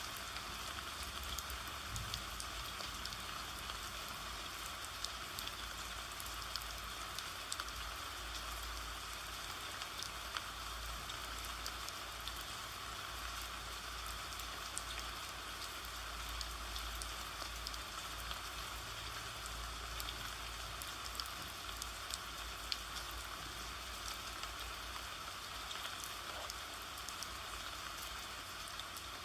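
Steady rainfall: an even hiss of rain with scattered small drop ticks.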